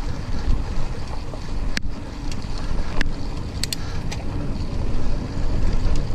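Wind buffeting the microphone of a mountain bike's camera, with a steady low rumble of tyres rolling on a dirt trail. A few sharp clicks are heard about two, three and four seconds in.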